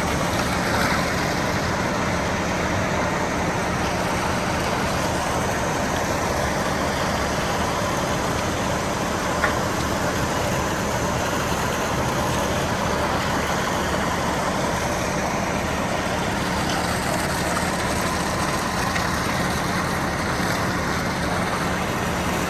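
Concrete truck's engine running steadily at a constant level, with one brief click about nine seconds in.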